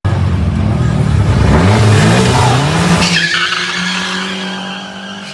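Turbocharged Fiat Tempra drag car launching hard from the start line: the engine revs climb quickly under a rush of tyre noise for about three seconds, then the sound steadies and fades as the car pulls away down the strip.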